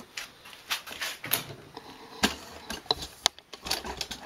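Handling noise as something is moved about: scattered clicks, light knocks and rustles, with a dull thump about two seconds in and a couple of sharp clicks a little after three seconds.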